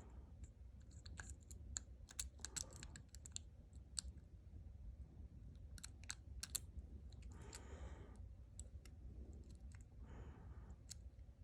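Faint, scattered metallic ticks and scrapes of a hook pick probing the pins of a Master Lock 410 padlock under a tension bar. The padlock is in a false set while the picker searches for the binding pin.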